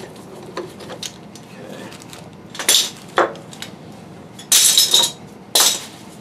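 Quick-grip bar clamps being released and set aside, with several short clatters and clinks. The longest and loudest, about half a second, comes about four and a half seconds in.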